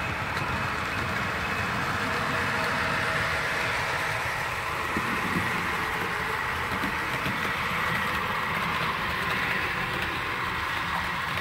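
Model train running on the layout: a steady whir of the locomotive's motor and wheels on the track.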